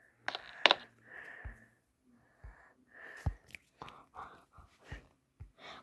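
A child's soft breaths and breathy whispery puffs, with a few sharp mouth clicks and faint low thumps.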